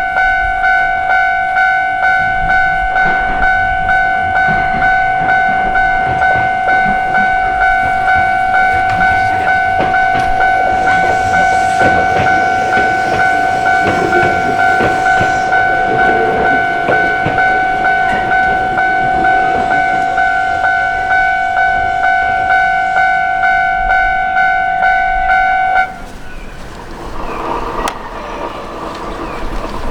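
Japanese level crossing bell ringing steadily at about two strokes a second, while an Iyo Railway electric train runs past with the rushing noise of its wheels. The bell cuts off suddenly near the end, leaving only the train running by.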